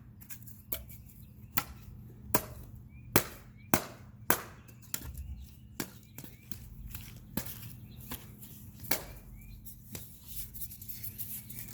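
Chopsticks whacking a styrofoam model airplane: a series of irregular sharp hits, a second or so apart, the loudest a few seconds in.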